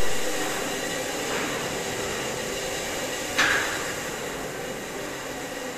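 Steady background hiss of an empty tiled room, with one short sharp sound about three and a half seconds in.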